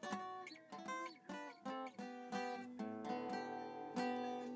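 Background acoustic guitar music: a run of plucked notes, each fading quickly, with sustained chords from about three seconds in.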